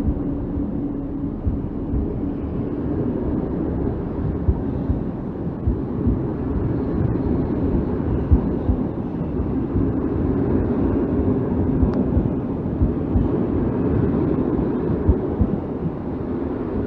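Passenger coaches of a departing regional train rolling past on the rails: a steady rumble of wheels on track with scattered knocks as the wheels pass over rail joints.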